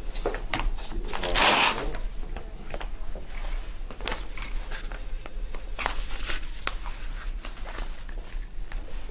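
Blood pressure cuff being wrapped around an upper arm: a loud rasping rip of its hook-and-loop fastener about a second and a half in, then scattered rustles and small clicks of the cuff and cloth.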